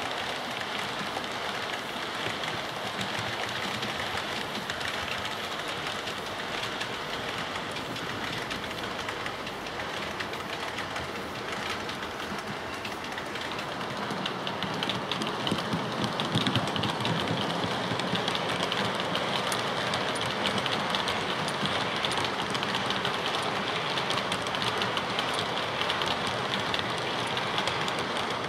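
OO gauge model HST train running on layout track: a steady running noise of wheels and motor with rapid clicking over the rail joints, getting louder about halfway through as the train runs close by.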